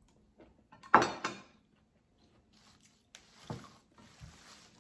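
Eating crispy batter-fried mushrooms, with a short loud mouth sound about a second in. From about three seconds in, a pile of fresh katuk leaves rustles and crackles as a hand rummages through it.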